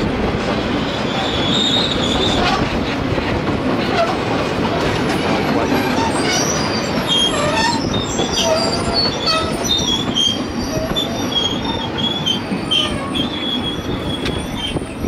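Railway wagons rolling past with a steady rumble, their steel wheels squealing against the rails in short high squeals that come and go and grow more frequent in the second half.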